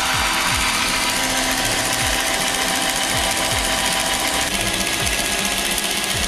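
A drill spinning the odometer drive cog of an electronic speedometer, a fast, steady mechanical rattle of the little gears and digit wheels: the mileage is being wound on to correct the reading.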